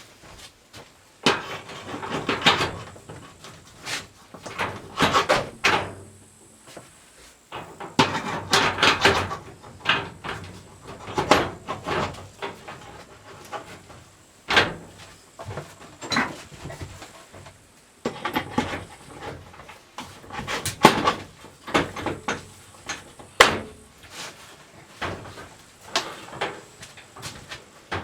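Irregular knocks, clicks and short scraping sounds of parts being handled and set down, with some brief ringing after the sharper hits.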